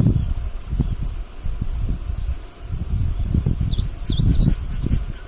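Meadow bunting singing a quick phrase of short, sharp notes starting about two-thirds of the way in, over a steady high insect drone. Loud irregular low rumbling runs underneath and is the loudest sound.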